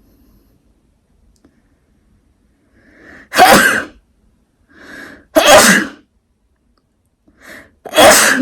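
Three loud sneezes, a couple of seconds apart, each preceded by a short sharp in-breath. They are set off by a twisted paper string (kovori) left in the nose to tickle it.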